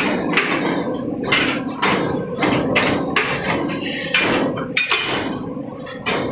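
CNC metal punching machine working, its punch striking the metal over and over, about two strokes a second, over a steady machine hum.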